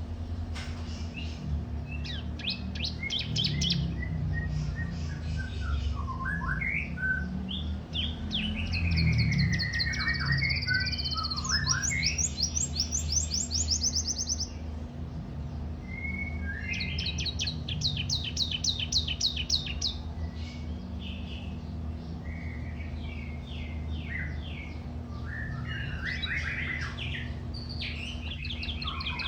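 Domestic canary in full, continuous song: long runs of rapid trills and rolls with sliding notes, broken by short pauses between phrases. A steady low hum runs underneath.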